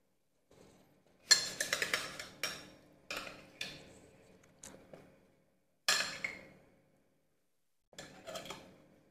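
China bowls and a porcelain spoon clinking and clattering against each other and a metal serving tray, in several separate bursts of sharp knocks with short ringing, the loudest about a second in.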